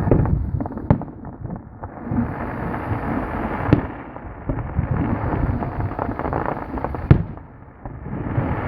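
Fireworks going off: a run of crackling pops over a low rumble of booms, with sharp, louder bangs about a second in, near four seconds and about seven seconds in.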